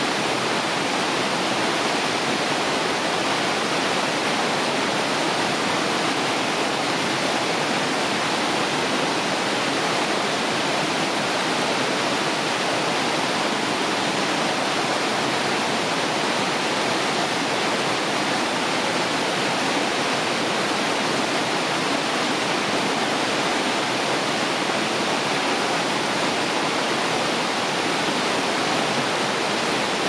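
Waterfall and river water rushing, a steady, even roar of falling and flowing water with no change in level.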